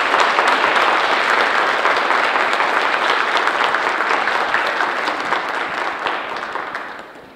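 Audience applauding: a steady crowd of hand claps that dies away near the end.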